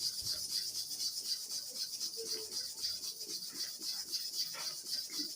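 A hair-clipper blade rubbed back and forth on an abrasive sharpening surface. It makes a run of quick scratchy strokes, about twenty in a set, as the blade is lapped flat.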